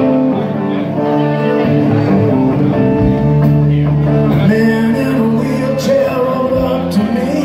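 Live band playing electric guitars and drums in an instrumental passage between sung lines, with sustained guitar notes, a few sliding notes and occasional drum hits.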